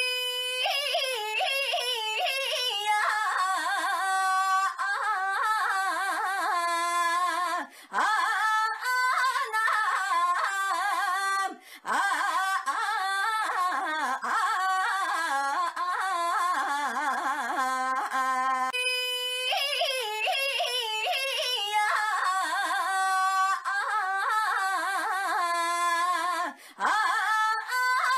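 A young woman's high-pitched, sing-song voice crying 'ainya' over and over, with its pitch wavering up and down. The cries run almost without pause, broken by a few short gaps.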